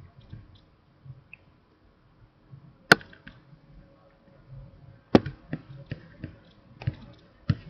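Several sharp, separate clicks over quiet room tone: the loudest about three seconds in, then a few more from about five seconds on.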